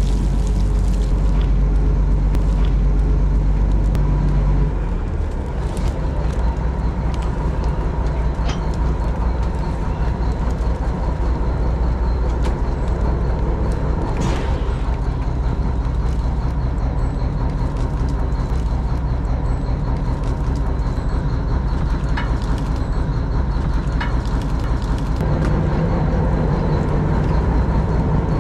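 Fishing boat's engine running steadily under the net haul, its low note dropping about five seconds in and rising again near the end, with a few light knocks over it.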